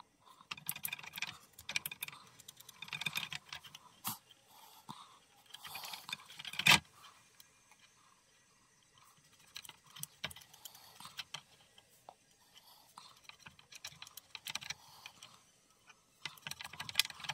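Light clicks, taps and rustles from handling an aerosol can of CRC 2-26 contact lube and its extension straw while dosing a row of potentiometers on a circuit board. There is a sharper knock about seven seconds in.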